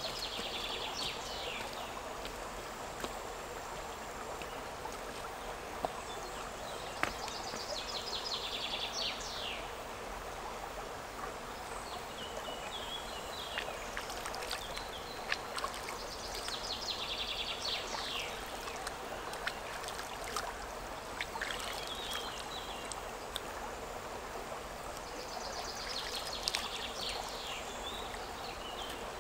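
Shallow river water running steadily over stones. Short high trills repeat about every few seconds, and small sharp clicks and splashes come here and there.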